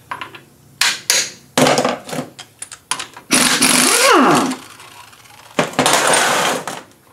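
A few sharp hammer taps on a differential, then a pneumatic impact wrench rattling on the crown wheel bolts in two bursts about two seconds apart, its air motor winding down in a falling whine after the first.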